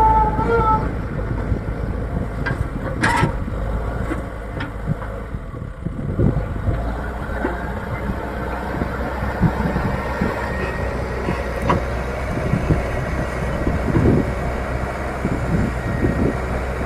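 Leyland Deere 435 backhoe loader's diesel engine running steadily, with a few sharp knocks about three seconds in.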